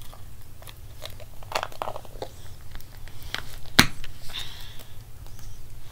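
Slime being squeezed and squished in the hands, giving small wet clicks and crackles. About four seconds in there is a single sharp knock.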